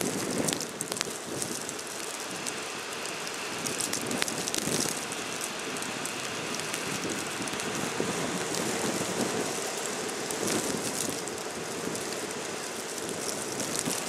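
Blizzard wind blowing steadily and driving fine snow, which makes a steady hiss peppered with small ticks, swelling in a few gusts.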